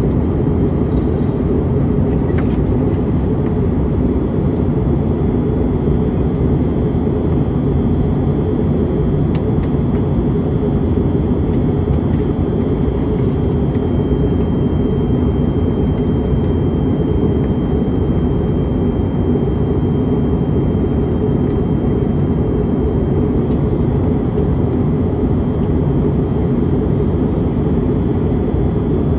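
Steady cabin noise inside an Airbus A321neo airliner in flight: a dense, even rumble of engine and airflow that stays unchanged, with a faint high steady tone coming in about halfway.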